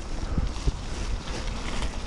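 Bicycle tyres rolling over a wet gravel path, with wind buffeting the GoPro Hero Session 5's microphone as a steady low rumble. Two brief knocks come under a second in.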